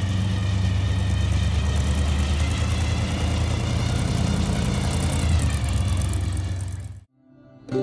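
Engine of a 1955 Chevrolet hot rod rumbling steadily as the car drives slowly past, with a deep, lumpy exhaust note. It cuts off suddenly near the end.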